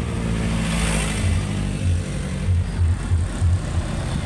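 A motor vehicle engine running steadily, with a series of irregular low thumps.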